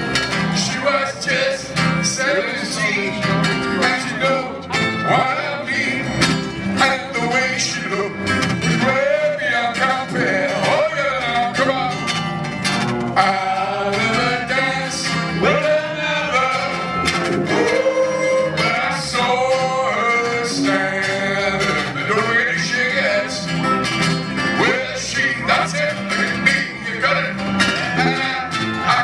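Live band music at a steady volume, with a melody line that slides and bends over the accompaniment.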